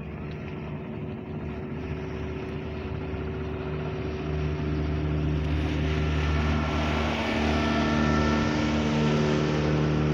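Motorboat engine running as the boat passes close by, a steady drone that grows louder from about four seconds in.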